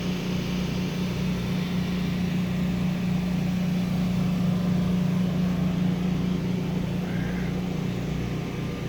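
A motor running steadily, a constant low hum with an even rush of noise under it.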